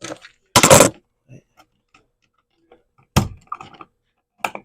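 Hand-tool and hardware handling at a wall outlet: a short scraping rustle, then two sharp clicks and a few faint ticks as the screwed-free receptacle and its metal strap are handled in the electrical box.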